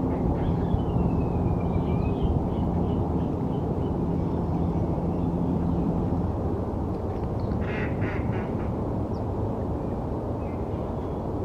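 Steady low city traffic rumble with a vehicle engine humming for the first six seconds, and small bird calls over it: a sweeping whistled call about a second in, a run of short notes after it, and a brief burst of harsh calls about eight seconds in.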